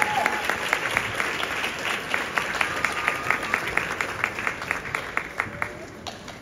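Audience applauding, many hands clapping; the clapping thins out and fades toward the end.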